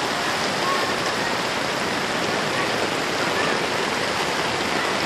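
Steady rushing hiss of water: rain falling on a flooded street and the floodwater around it.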